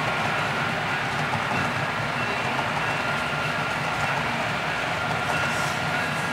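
HO scale model freight train's hopper cars rolling past on the layout track: a steady rolling rumble and clatter of the cars' wheels on the rails, with a thin, steady high whine running through it.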